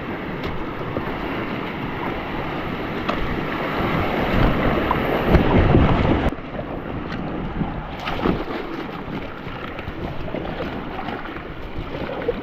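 Steady rush of river water with wind buffeting the microphone, heavier around the middle and dropping off suddenly about six seconds in, with a few faint knocks.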